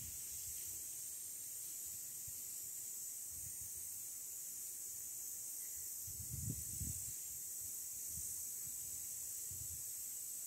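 Hands digging and pressing soil to plant a coffee seedling: a few soft, dull thumps, the clearest cluster about two-thirds of the way in. A steady high hiss runs underneath.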